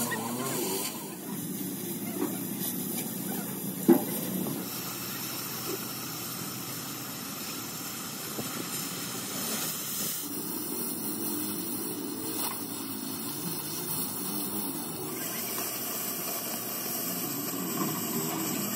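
Oxy-fuel cutting torch hissing steadily as it cuts through steel plate. A single sharp crack stands out about four seconds in.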